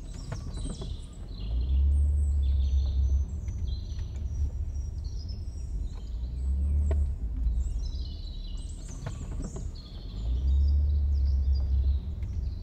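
Small birds chirping and singing in short trills over a low rumble that swells three times, a second or two each.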